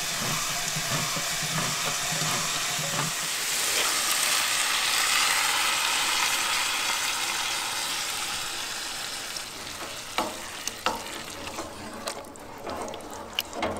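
A handheld can opener cranking round the lid of a tin can. Then tomato sauce sizzles as it is poured into a hot pot of browned ground beef, loudest about five seconds in. Near the end a wooden spoon stirs and knocks against the pot a few times.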